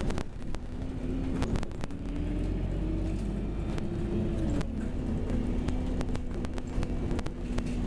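Bus engine and drivetrain heard from inside the passenger cabin: a steady drone whose note climbs for a couple of seconds, then drops sharply about halfway through. Frequent sharp clicks and rattles are heard over it.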